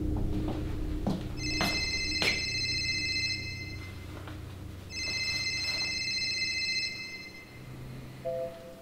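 Phone ringing twice with a high-pitched electronic ring, each ring lasting about two seconds with a short pause between, followed near the end by a brief low beep.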